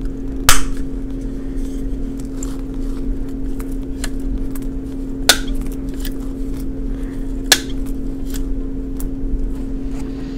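Sharp plastic clicks from a Blythe doll head as it is handled and its eye mechanism is worked to change the eyes; the mechanism has been sticking. The loudest click comes about half a second in, with others around five and seven and a half seconds in. A steady low hum runs underneath.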